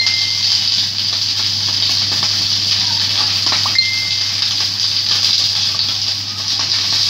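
Whole fish frying in hot oil in a nonstick wok: a steady sizzle with small scattered pops.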